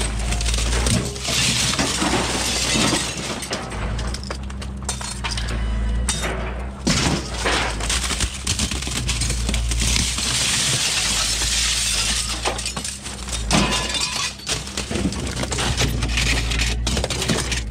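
Old aluminium window frames with their glass panes being handled and thrown about in scrap, glass repeatedly shattering and crunching with clinks and clanks of the metal frames. A steady low hum runs underneath.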